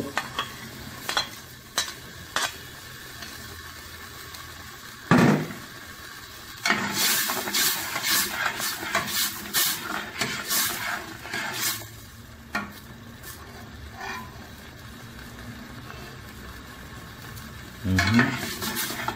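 Blended spice paste sizzling as it is sautéed in hot coconut oil in a stainless steel pressure-cooker pot, with a spatula stirring and scraping against the metal. The scraping strokes come thick and fast about seven to twelve seconds in.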